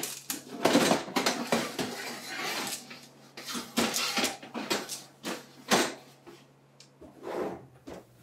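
Metal baking tray knocking and scraping against the wire rack of an electric oven as it is slid in, a series of sharp clatters and scrapes with a pause near the end.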